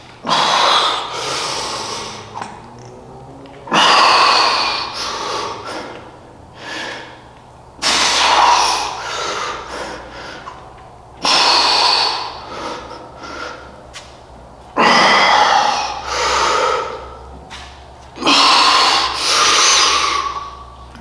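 A man's heavy, forceful breaths from the exertion of lifting weights. There are six loud breaths, about one every three and a half seconds, each starting sharply and then fading.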